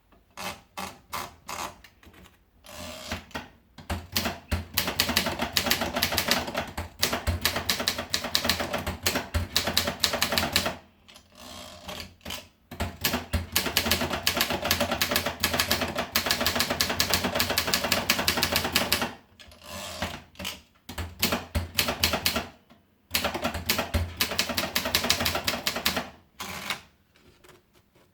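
Olympia Simplex manual typewriter being typed on: a few slow keystrokes, then long runs of rapid type-bar clacks broken by short pauses, ending with a few scattered strokes.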